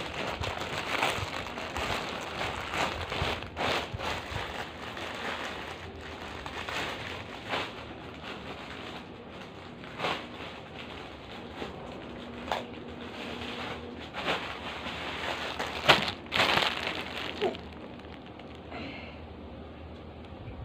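Clear plastic packaging bag crinkling and rustling as it is handled, with many sharp crackles; the loudest crackle comes about 16 seconds in, and the rustling eases off for the last few seconds.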